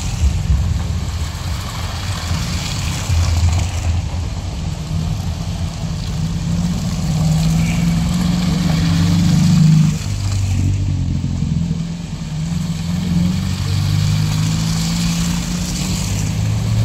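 Car engines running as cars drive slowly past one after another over a muddy road, the low engine note rising and falling as each passes, loudest about halfway through.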